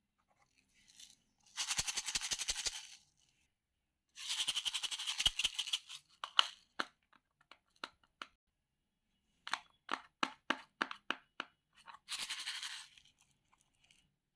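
Slime being squeezed and worked by hand, crackling in three bursts of fast little pops, with runs of separate sharp pops between them.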